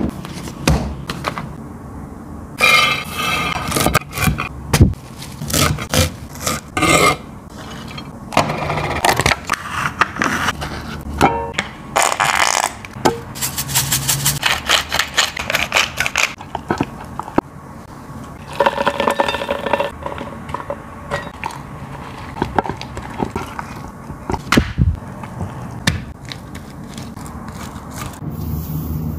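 Food-preparation sounds: a metal fork scraping and clinking in a ceramic bowl with rapid repeated strokes as it mixes soft cheese, and a spatula scraping filling across flatbread, among scattered taps and knocks of utensils.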